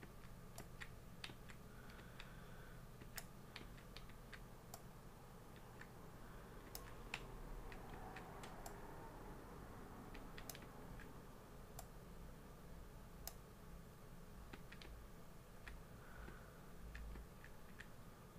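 Faint, irregular clicks of computer controls, one to a few a second, as a video is stepped through frame by frame, over a low steady hum.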